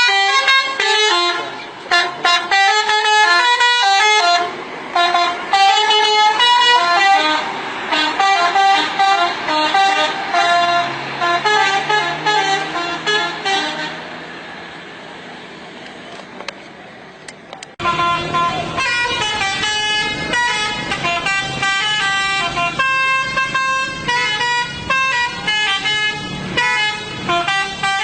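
Indonesian 'telolet' bus horn: a set of tuned air horns playing quick multi-note melodies, stepping from pitch to pitch. About halfway through the horns fall silent, leaving a quieter steady low hum. Near two-thirds of the way through the melodies cut back in abruptly.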